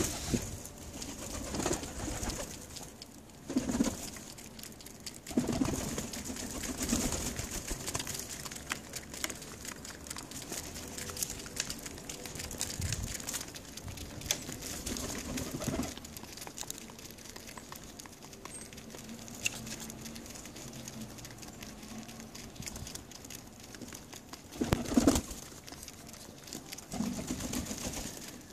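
Feral pigeons cooing now and then while pecking seed from an open hand, with a steady patter of small pecking clicks.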